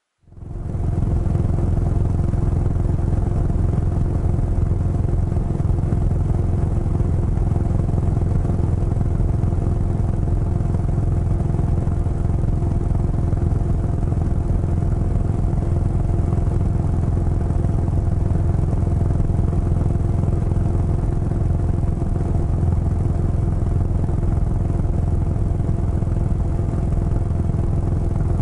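Motorcycle engine running at a steady cruise, heard from the rider's seat, its note holding unchanged throughout. The sound fades in quickly at the very start.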